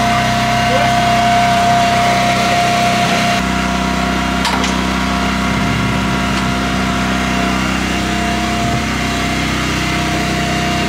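Engine on a small fishing boat running steadily, with a steady high whine over it; about three and a half seconds in, the low rumble grows louder and stays up.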